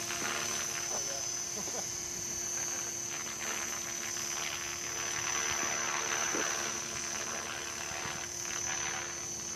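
A steady high insect trill over a faint steady hum from an Align T-Rex 500 electric RC helicopter flying high overhead.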